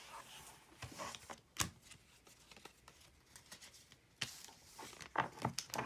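Pokemon trading cards and their packaging being handled: soft rustling with a few sharp clicks, the loudest about a second and a half in and a quick run of clicks near the end.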